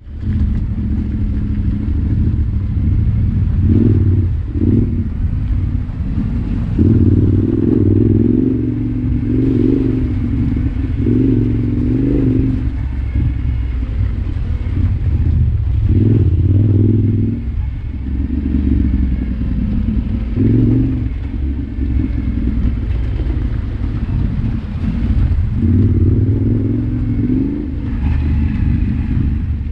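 Yamaha Ténéré 700's parallel-twin engine running under way, its note swelling and easing as the throttle opens and closes.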